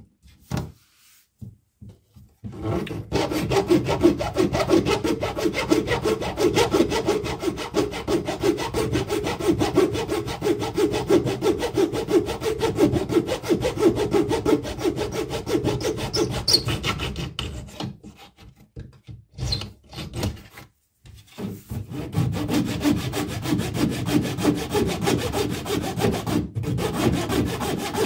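A bare saw blade worked back and forth in rapid short strokes, cutting through the wooden dowels under a bath side panel. The sawing starts about two and a half seconds in, stops for a few seconds after the middle, then carries on.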